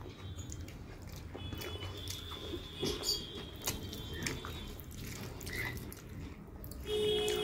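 Fingers mixing rice with chicken curry on a plate, making soft wet squishes and small sticky clicks, along with mouth noises from chewing.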